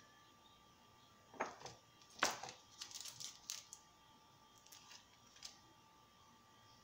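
Crinkling and light clicks of a small seasoning sachet being picked up and handled, in two clusters, the loudest a little over two seconds in.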